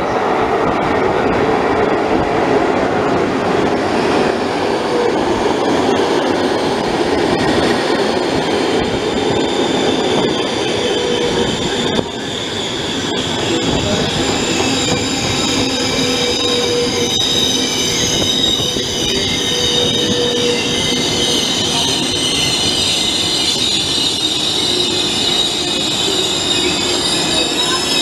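Frecciabianca passenger train hauled by E.414 electric locomotives pulling into a station platform. Its coaches rumble past while the brakes squeal in several steady high tones as it slows, with a brief dip in level about twelve seconds in.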